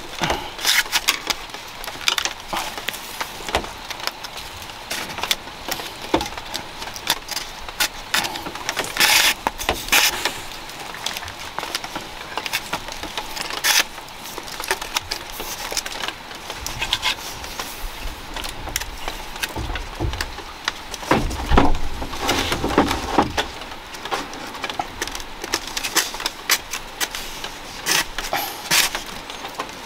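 Thin bamboo strips clicking and rustling as they are threaded through and pulled tight around the rim of a hand-woven bamboo tray, in irregular scratchy clicks. About two-thirds of the way in comes a louder bout of rustling with a low thump.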